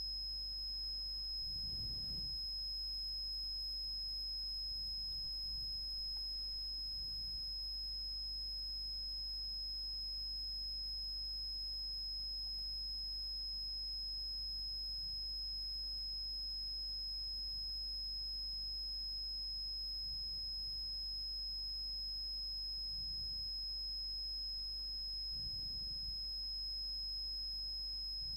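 Steady high-pitched sine tone of about 5 kHz from a computer sound-card signal generator, holding one pitch without a break.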